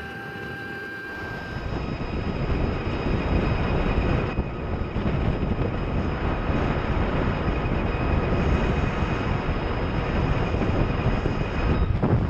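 Wind rushing over the microphone and tyre noise from an Energica Ego electric motorcycle cruising at road speed, with a faint, steady high whine above the rush. The rush gets louder about two seconds in.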